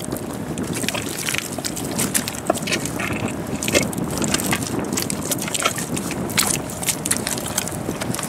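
Irregular crunching and squelching of wet mud and shingle as a buried iron anchor is twisted and worked free, over a steady rush of wind and water.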